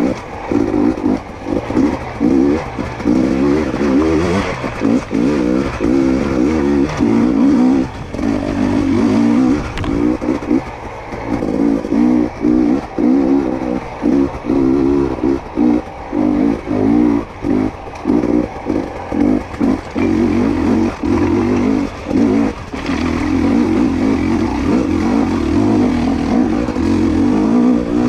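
2022 GasGas EC250 two-stroke dirt bike engine revving under load, the throttle opened and shut again and again in short bursts. Near the end it pulls more steadily.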